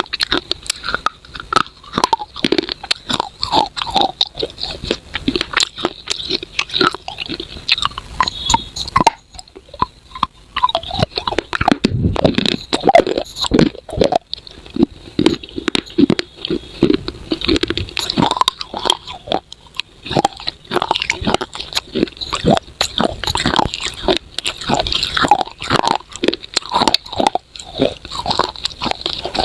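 Close-miked biting and crunching of pieces of baked clay pot, crisp cracking bites and gritty chewing in an irregular, continuous run, with a brief lull about nine seconds in.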